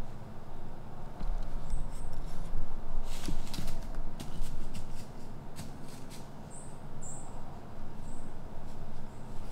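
Woodland ambience: a steady low rumble of wind on the microphone, with scattered sharp clicks of rustling that cluster about three to four seconds in. Several short, very high chirps come from a small bird or animal.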